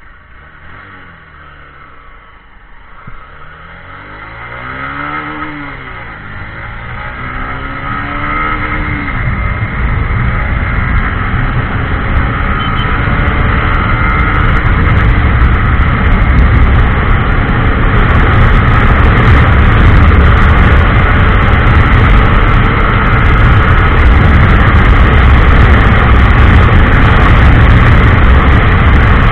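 Honda SP 125's single-cylinder engine accelerating hard through the gears, its pitch climbing and dropping at each of about three shifts in the first nine seconds. A rush of wind and road noise then builds into a loud, steady roar as the bike runs flat out at speed.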